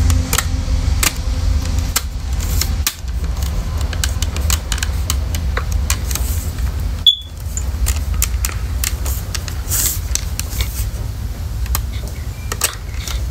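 Plastic clicks and handling noises as a smoke alarm is worked onto its mounting plate and snapped into place, with one sharp click about seven seconds in. A steady low rumble sits underneath.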